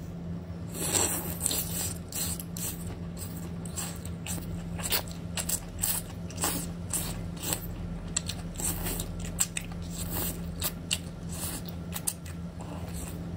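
Close-up eating sounds of chewing and sucking on canned spicy octopus tentacles: irregular wet smacks, clicks and slurps from the mouth.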